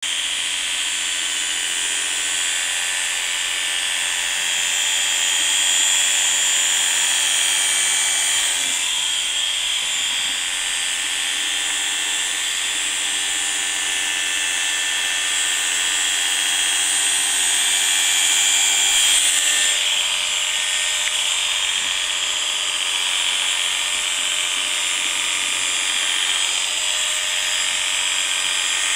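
Electric animal clippers running continuously as they shear an angora rabbit's wool: a steady high-pitched buzz whose tone shifts slightly twice.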